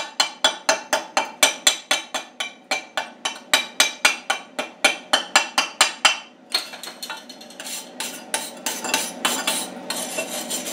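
A steel chipping hammer strikes a fresh weld on a steel piece in quick, even blows, about four a second, knocking off the welding slag. About six seconds in the blows stop and give way to a rapid scrubbing that is typical of a steel wire brush cleaning the weld.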